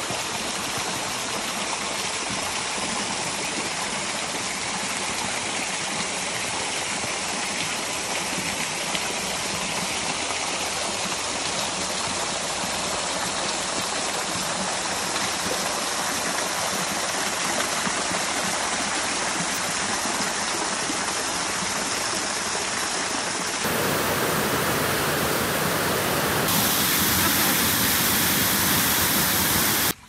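Waterfall pouring off a rock face into a lake: a steady rush of falling and splashing water. It jumps louder and fuller about three-quarters of the way through.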